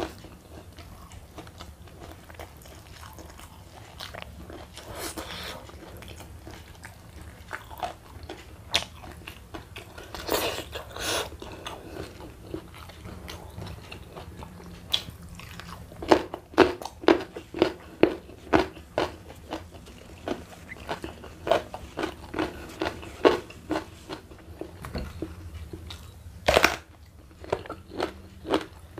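Close-up mouth sounds of a person chewing crunchy raw vegetables, with a run of sharp crunches about twice a second in the second half, over a low steady hum.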